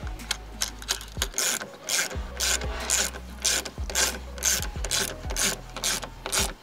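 Hand ratchet clicking in repeated back-and-forth strokes, about two a second, as a bolt is tightened.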